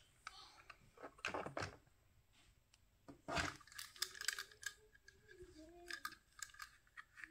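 Die-cast toy cars clicking and knocking against a plastic carrying case as they are handled, a scattered series of light clicks.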